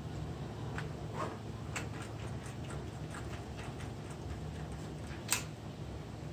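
Small scattered clicks and taps of metal tools and small camera parts being handled during a Nikon DSLR shutter-assembly repair, with one sharper, louder click about five seconds in.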